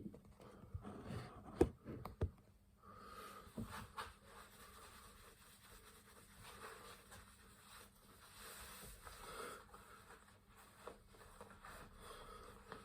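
Faint handling noises in a small room: a few sharp clicks in the first few seconds, the loudest about a second and a half in, then low, uneven rustling and scraping.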